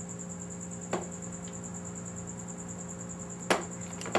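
A few sharp metallic clicks of small steel parts being handled under an engine block, then a louder clack about three and a half seconds in and another at the end: a connecting-rod nut dropped and striking the concrete floor. A steady electrical hum runs underneath.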